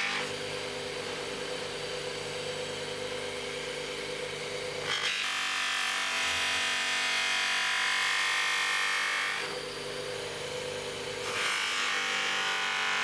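Bench polishing motor running with a buffing wheel while a steel cleaver blade is pressed against it: a steady hum with a rushing hiss of the buffing, which shifts in tone about five seconds in and again twice near the end.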